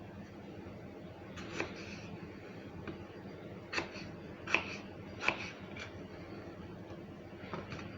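A kitchen knife cutting potatoes on a cutting board: sharp, irregular knocks of the blade against the board, several in a row with short pauses, the loudest three near the middle.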